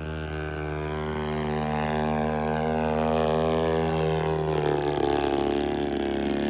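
Radio-controlled model airplane's engine and propeller running steadily in flight, its higher pitch falling gradually through the middle as the plane passes.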